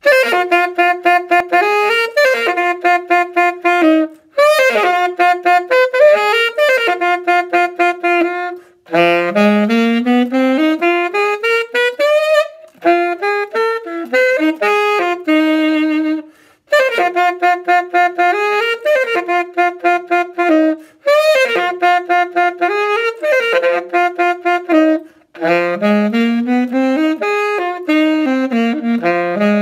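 Solo saxophone playing a funk riff, unaccompanied: repeated phrases of short, detached notes with brief breath gaps between them, twice broken by a rising run up the horn.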